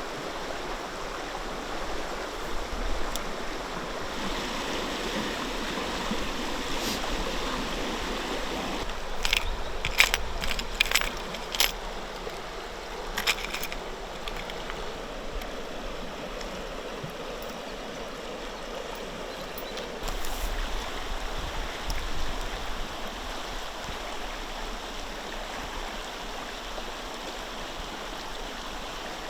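River water flowing steadily, with a quick cluster of sharp clicks and knocks about a third of the way in.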